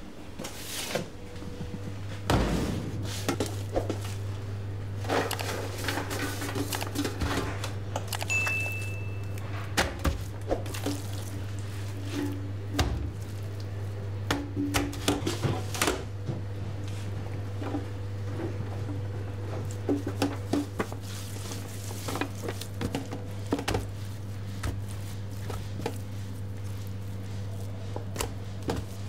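Raw lamb being handled in stainless-steel trays: scattered soft thunks, squishes and clinks of metal pans over a steady low hum. A short high electronic chime sounds about eight seconds in.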